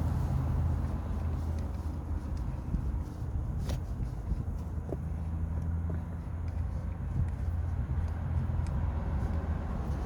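Steady low engine hum, like a vehicle running, with a few faint clicks and one sharper click about four seconds in.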